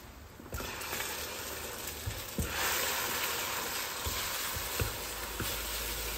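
Beaten eggs and bacon sizzling in a nonstick frying pan. The sizzle picks up about half a second in and grows louder after two seconds, with a few light knocks of a spatula as the eggs are scrambled.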